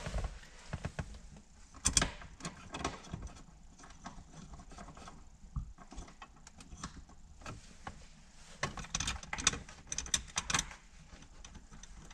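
Irregular small clicks, taps and rustles of hands handling parts and plastic trim around the shifter opening in the center console.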